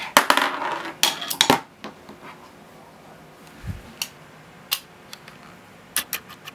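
A marble clattering and rattling along and off a plastic toy marble-run track, a quick cluster of hard clicks and knocks in the first second and a half, then a few scattered light clicks and a dull thump.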